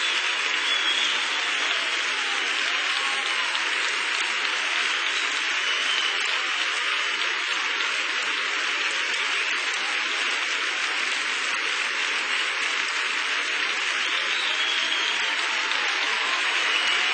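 Large concert audience applauding steadily after a song.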